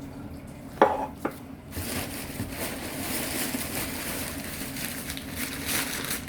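Two sharp knocks about a second in, then steady rustling and crinkling of packing material being handled.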